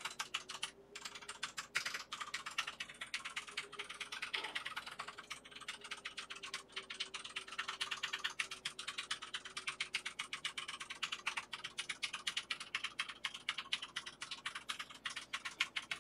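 Keys of a FILCO Majestouch 2SS Edition full-size mechanical keyboard being pressed one after another in a rapid, steady run of clicks. The keys are pressed down to reseat keycaps that came loose in shipping.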